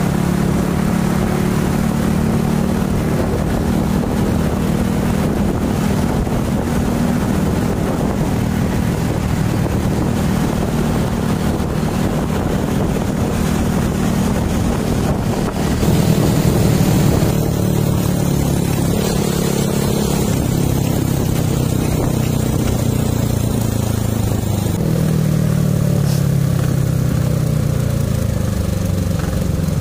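Motorcycle engine running while riding in traffic, its pitch shifting with speed and falling near the end as it slows.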